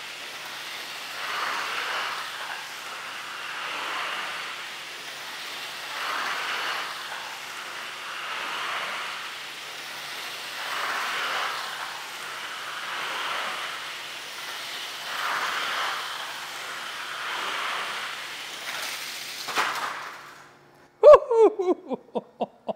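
3D-printed toy train running laps at full throttle on a banked plastic oval track, its rolling noise swelling and fading about every two seconds as it passes by. Near the end a sharp click comes and the running noise stops; the run has broken another wheel. About a second later there is a loud clack followed by a string of fading clacks.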